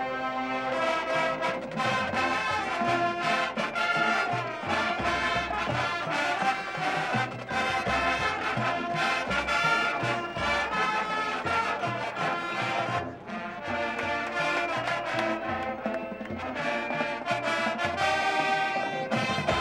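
Marching band brass section playing a loud, full passage of its show music, with bass drum hits underneath.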